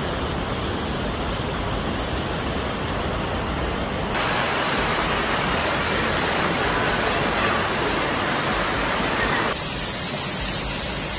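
Steady rushing noise of floodwater and rain from several amateur clips cut together. The character of the noise changes abruptly about four seconds in and again about nine and a half seconds in.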